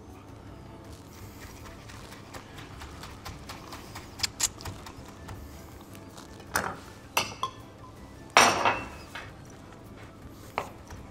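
Chef's knife knocking on a wooden cutting board while chopping fresh herbs: a few irregular knocks, the loudest a little over eight seconds in.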